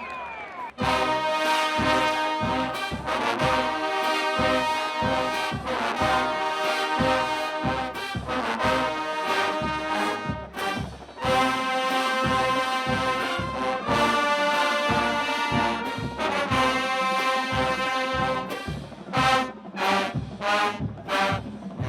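Marching band playing: brass section holding chords over a steady bass drum beat about twice a second, ending with a run of short, punched hits near the end.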